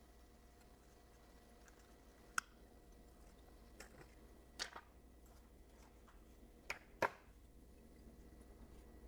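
Handful of light clicks and taps from handling the phone screen and its replacement outer glass, about six in all, the loudest two a few seconds apart, over a faint steady hum.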